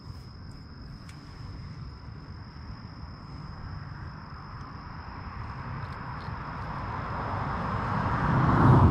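A vehicle passing on the nearby road, its noise building slowly and peaking near the end.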